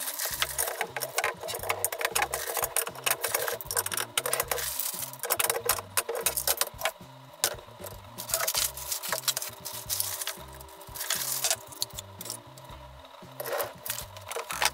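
Sped-up rustling, crinkling and clatter of plastic-wrapped chair parts being unpacked, under background music with a steady beat.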